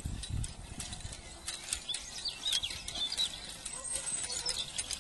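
A metal horse-drawn field implement pulled by a draught horse, rattling and clinking in quick irregular clicks as it drags over the ground, with the horse's hoof falls.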